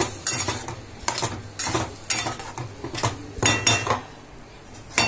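Flat spatula stirring a thick prawn curry in a pan, knocking and scraping against the pan about every half second; a few of the knocks ring briefly like metal.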